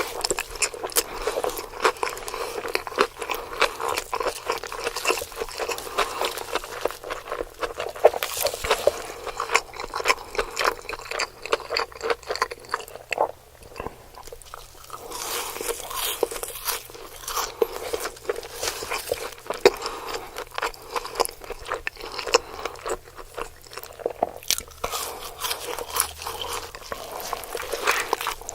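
Close-miked eating of a large burger: bites and chewing, heard as a dense run of quick, sharp clicks with a brief lull about halfway.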